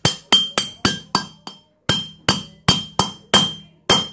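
A hammer striking the end of a long steel rod held in a Yamaha Mio motorcycle cylinder head: about a dozen sharp metal taps, roughly three a second, each with a short ring, and a brief pause about halfway through.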